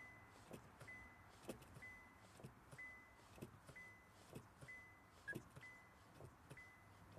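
A car's warning chime beeping steadily about once a second, a short single high tone each time, with faint irregular soft knocks from a cowboy boot working the pedal.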